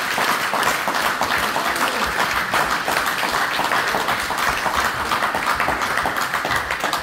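A small crowd applauding steadily, dense clapping that holds an even level throughout.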